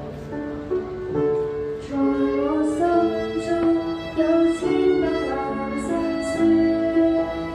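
A girl singing a solo line of a Christian song into a handheld microphone, with quiet instrumental accompaniment underneath.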